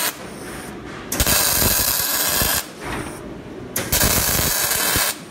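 MIG welding arc crackling and sizzling on steel in short separate runs: a run cuts off right at the start, then two more of about a second and a half each, with quieter pauses between as the welder stops and restarts.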